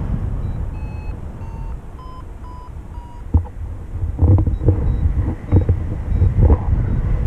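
Paragliding variometer beeping: short, evenly spaced beeps about two a second, the tone a vario gives while the glider is climbing. Wind rushes over the microphone underneath, with a few knocks in the second half.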